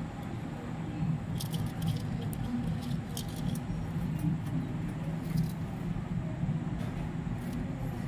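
Budgerigars giving a few short, high squeaky chirps over a steady low hum.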